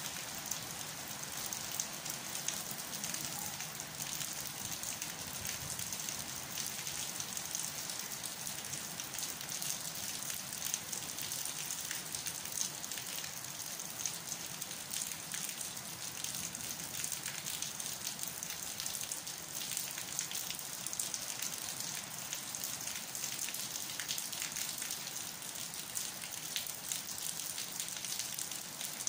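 Steady rain falling: a dense, even hiss with many fine ticks of individual drops.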